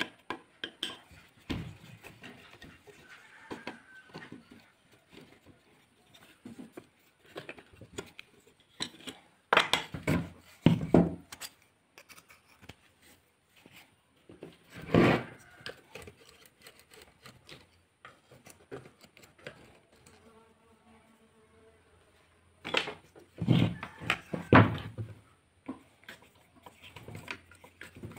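Scattered metal clinks and knocks, a few of them sharp and loud, from a screwdriver and the metal housing parts of a Globe electric hand planer being taken apart by hand.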